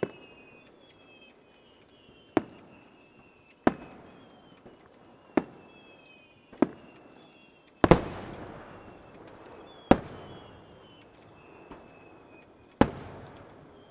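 Aerial firework shells bursting: about eight sharp bangs a second or three apart, each trailing off in an echo. The loudest, about eight seconds in, is followed by a long crackling hiss.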